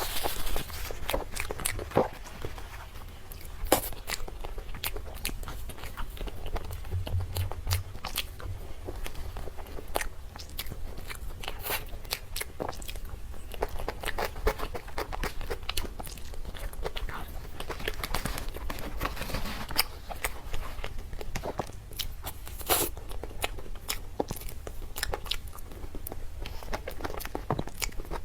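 Close-miked eating of cake and dessert: biting and chewing, with many short sharp mouth clicks scattered throughout over a steady low hum.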